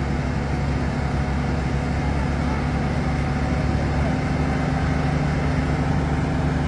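A heavy truck engine running steadily at an even speed.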